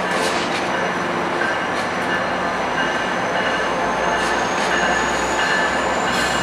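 Passenger train cars rolling through curved track and switches, wheels on the rails making a steady rumble with a thin high wheel squeal that dips and then slowly rises. A few sharp clicks come at irregular moments as the wheels cross rail joints and switch frogs.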